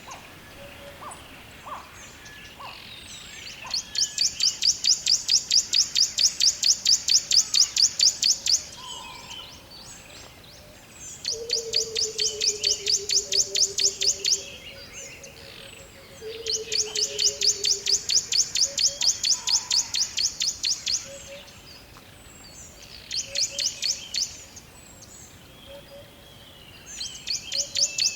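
Forest birdsong: a loud, even, high trill of about five notes a second, in five bouts of a few seconds each. Between the bouts are softer scattered chirps, and twice a lower whistle that slides down in pitch.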